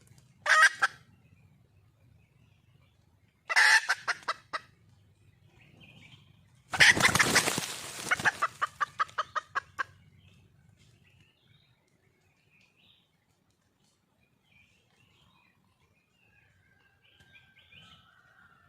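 Red junglefowl hen calling: three bouts of rapid cackling, a short one, a longer one, and the longest from about seven seconds in, with notes quickening into a fast run. It is the hen's call to attract a cock. Faint small-bird chirps follow near the end.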